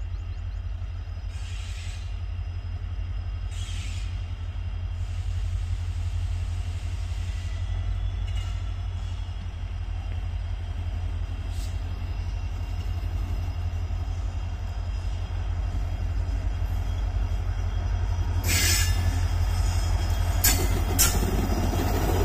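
Twin WDG-4D diesel locomotives' two-stroke engines running with a steady low throb as they pull a goods train away, growing louder as they come closer. Near the end, a run of sharp clacks from the wheels crossing rail joints and points.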